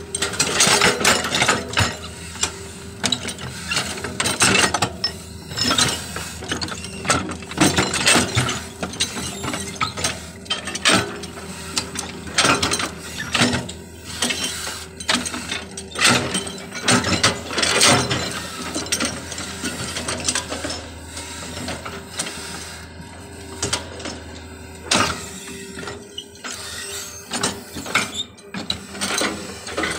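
Hitachi excavator working: a steady engine and hydraulic drone under frequent irregular metallic clanks, rattles and scrapes.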